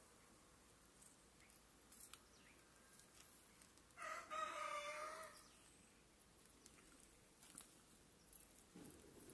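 Near silence, broken about four seconds in by a rooster crowing once, faintly, for just over a second.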